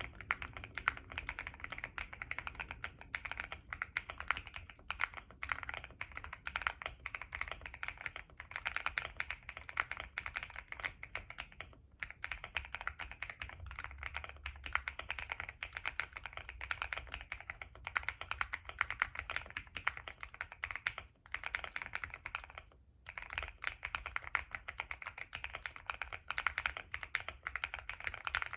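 Continuous fast typing on a Monsgeek M1 mechanical keyboard with stock CIY Naraka switches (POK stems), POM plate and foam-dampened, tape-modded case. Dense rapid key clacks with a few brief pauses.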